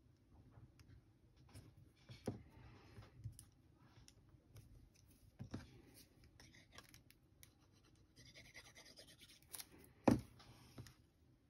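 Faint handling of paper and a plastic liquid glue bottle on a craft mat: small taps and clicks and soft rubbing of card, with the loudest knock about ten seconds in as the bottle is set down.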